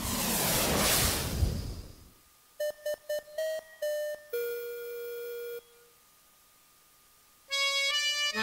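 Electronic logo sting: a whoosh that fades out over about two seconds, then a quick run of short synthesized chime notes ending in one held note. After a short pause, synthesized music begins near the end.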